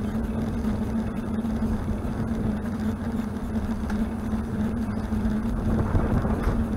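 Wind and road noise of a moving bicycle, heard through a handlebar-mounted camera, with a steady low hum under it, a little louder about six seconds in.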